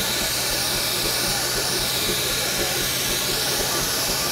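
Steam hissing steadily from a 1906 Jonathan Wheeler steam engine as it vents, with a steady low hum beneath.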